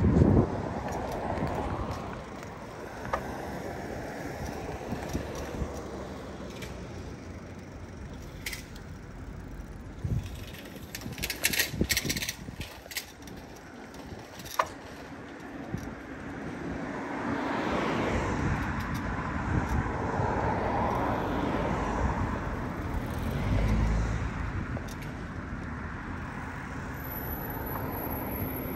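Road traffic and street noise heard from a moving bicycle: a steady rush, with a motor vehicle swelling past from about 17 seconds in and fading after about 24 seconds.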